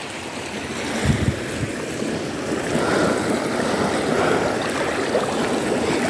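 Shallow, fast-flowing river rushing steadily over a stony bed, with a brief low thump about a second in.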